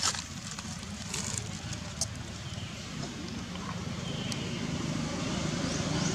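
Low engine rumble of a motor vehicle, growing steadily louder as it approaches, with a few faint clicks in the first half.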